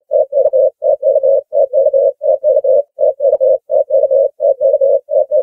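Ringneck dove cooing: a quick three-note coo repeated over and over, about one phrase every 0.7 seconds.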